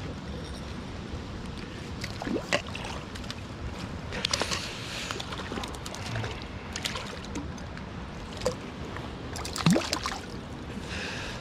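Water splashing sharply several times over a steady rush of flowing water, typical of a hooked trout thrashing at the surface as it is played and landed.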